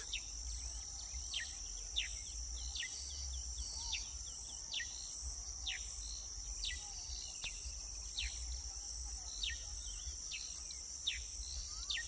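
Steady high-pitched insect chorus of crickets, with a bird repeating short falling call notes about once or twice a second.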